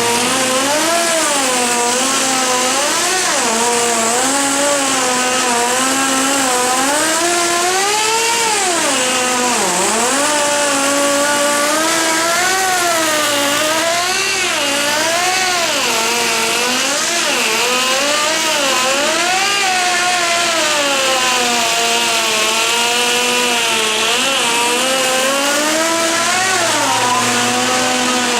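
A motor running without a break, its pitch rising and falling again and again as its speed or load changes, over a steady lower hum.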